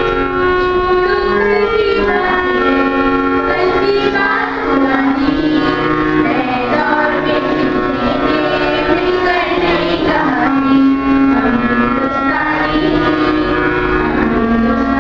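Singing with instrumental accompaniment: a sung melody over steady held notes from an instrument.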